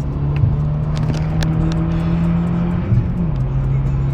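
Renault Mégane R26's turbocharged four-cylinder engine running at steady revs; about three seconds in the pitch briefly jumps and then settles lower, as with a gear change. Scattered sharp ticks sound over it.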